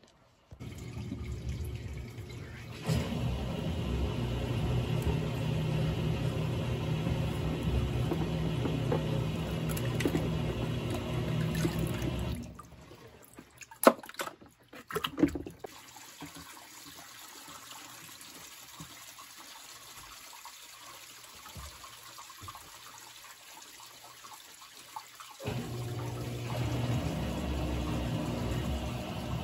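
Water running in a utility sink, a steady rush that stops about twelve seconds in and starts again near the end. In the quieter gap come a few sharp knocks of hard plastic Shop-Vac parts being handled in the water.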